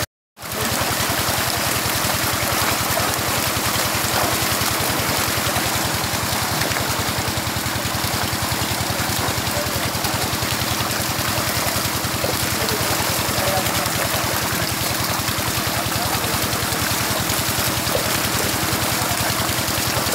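Water churning and splashing in a concrete tank crowded with hybrid magur catfish thrashing at the surface, over the steady hum of an engine running. The sound cuts out for a moment just after the start.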